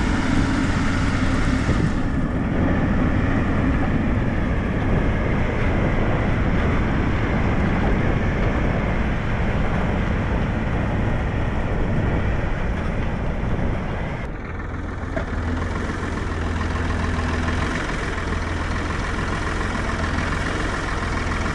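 A vehicle engine running steadily, its tone shifting about two seconds in and again about fourteen seconds in, where a low hum grows stronger.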